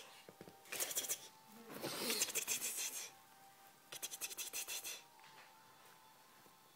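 Three short bursts of rapid scratching, the middle one the longest and loudest, with quiet in between.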